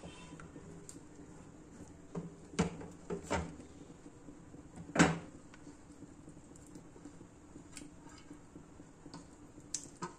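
Metal spoon scraping and knocking against a metal cooking pot as curry is scraped out of it, with several knocks between about two and five seconds in, the loudest about five seconds in. A couple of small clicks near the end.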